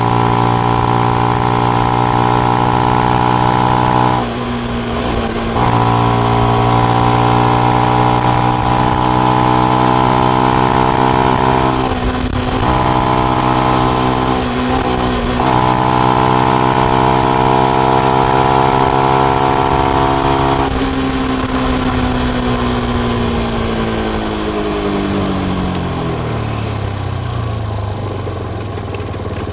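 Benelli BN125's single-cylinder four-stroke engine through its stock exhaust with the dB killer in, running under steady throttle with the revs slowly climbing, broken by three brief dips about 4, 12 and 15 seconds in. About two-thirds of the way through the throttle closes and the revs fall away steadily to a low, even note.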